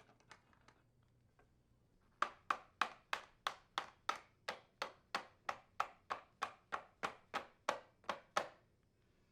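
A mallet striking a punch to drive a front-load washer's door hinge pin into position: about twenty even taps, roughly three a second, starting about two seconds in.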